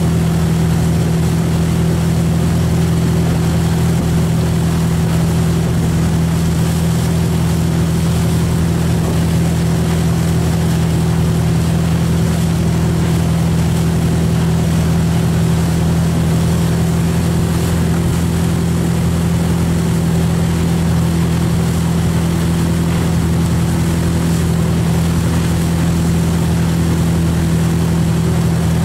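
Wake boat's engine running steadily under way, a constant low drone, over the rush of the churning wake.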